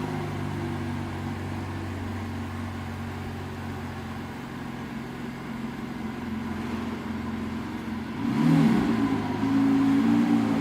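Lamborghini Aventador's V12 engine idling steadily, then revved briefly about eight seconds in, and held at raised revs near the end.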